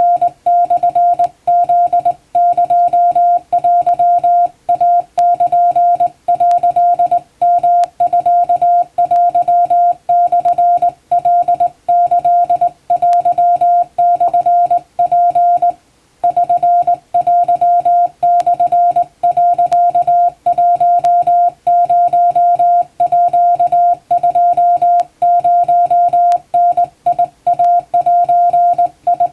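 Hand-sent Japanese Wabun Morse code: a single steady beep tone keyed on and off in dots and dashes, with a longer pause between groups about halfway through.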